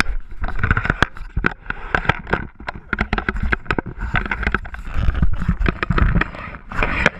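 Wind rumbling on the microphone of a hand-held action camera, with many sharp, irregular clicks and knocks from the camera being handled.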